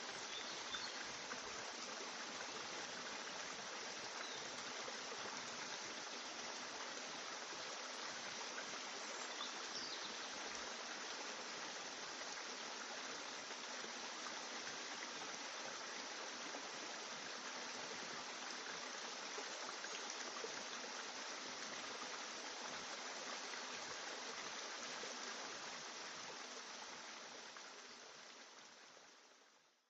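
A steady, even rushing noise like flowing water, unbroken throughout, that fades out over the last few seconds.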